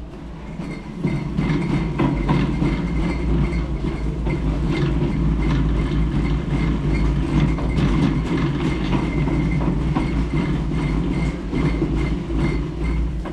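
Wheeled supermarket shopping trolley being pushed along a hard floor, its castors rumbling and its wire basket and bottles rattling. The rumble picks up about a second in.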